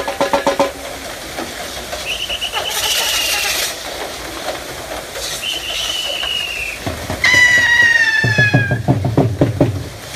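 Rhythmic clacking of a wooden Persian-wheel well turned by a pair of bulls running around it. Over it come several high, shrill, slightly falling calls, the loudest a bit past the middle, and a low pulsing rumble from about two-thirds of the way in.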